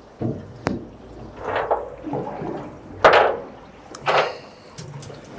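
Water splashing and slopping in a few short bursts, the loudest about three seconds in, with a sharp click under a second in.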